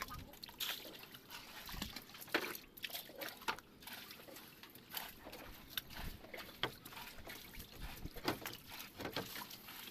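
Water sloshing and trickling in a boat's fish hold, with irregular sharp splashes as a cut-off plastic jug scoops water and live fish flap in the shallow water.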